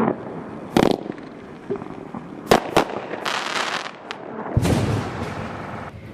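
Consumer firework cake firing: sharp bangs of bursting shells, one about a second in and two close together near the middle, followed by a spell of crackling and a longer rumbling burst near the end that fades out.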